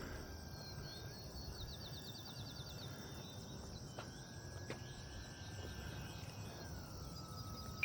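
Faint outdoor ambience: insects chirping, with a short fast trill about a second and a half in, and the thin, steady whine of the FMS Cessna 182's distant brushless electric motor. The motor's pitch slides down near the end as it comes in for a touch and go. A short click comes at the very end.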